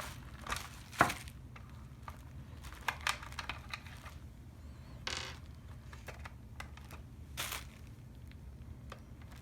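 Scattered plastic clicks and taps as a cover is pried off a Hyundai Azera side mirror housing, with a sharp snap about a second in and a short scrape around the middle.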